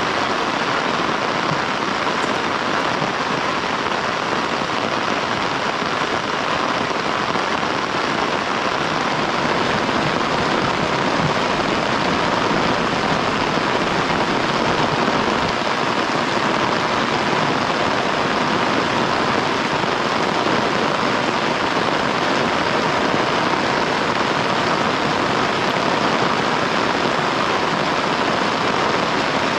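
Heavy rain falling in a steady, dense downpour.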